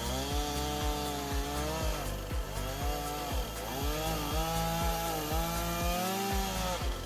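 Chainsaw cutting through a pine trunk, its pitch dipping and rising again and again as it loads up in the cut. Background music with a steady beat runs underneath.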